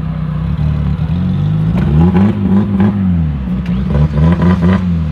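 A car engine idling, then revved up and down in quick repeated blips from about a second and a half in.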